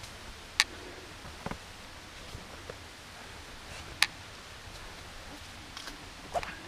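Hiker's footsteps on a rocky trail: scattered sharp clicks and light scuffs, with two louder clicks about half a second in and about four seconds in, over a steady low background.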